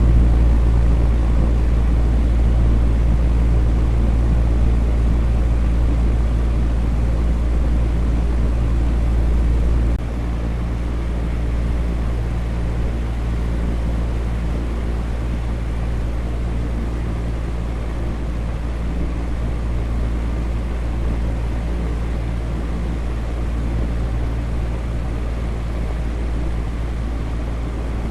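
Electric fan running steadily: an even rushing noise over a low hum. The low rumble drops a little in level about ten seconds in.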